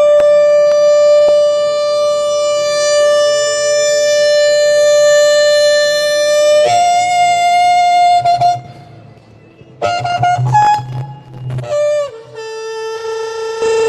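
Shofar blown: one long held note that jumps up in pitch about two-thirds of the way through and then breaks off. After a short gap come a few short, broken blasts, and then a second long, lower held note near the end.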